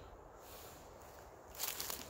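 Footsteps crunching through dry fallen leaves, starting about one and a half seconds in after a faint stretch.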